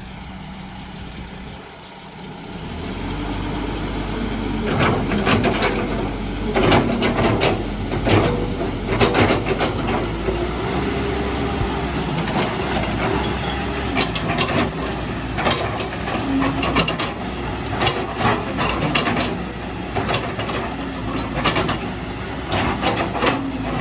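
Caterpillar 312D excavator's diesel engine running as the machine works. It picks up about two and a half seconds in, and from about five seconds on it is joined by repeated sharp clanks and knocks from the working machine.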